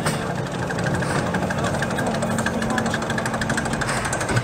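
Mine-train roller coaster running along its steel track: a loud, fast, steady clatter of wheels and train rattling.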